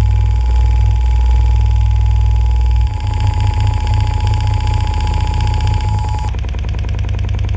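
Centre-channel speaker with freshly refoamed woofers playing a loud, deep bass signal under test, with a steady mid-pitched tone over it. About three seconds in the lowest bass gives way to a fast, even pulsing, and the mid tone stops about six seconds in.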